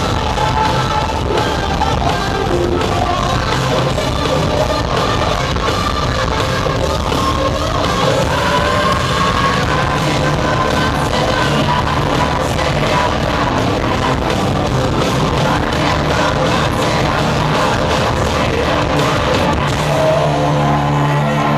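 Hard rock band playing live at full volume: distorted electric guitars, drums and keyboard under a sung, shouted vocal. Near the end it settles into a held, ringing chord.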